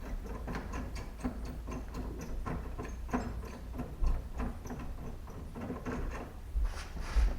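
Irregular light clicks and ticks, a few a second, from hand tools and trim parts being worked loose on a car door, with a couple of louder knocks near the end.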